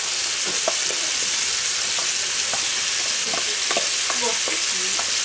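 Diced bacon sizzling in clarified butter in a cast-iron pan, a steady hiss with scattered small pops and crackles. A wooden spatula scrapes chopped onions into the pan and stirs them in.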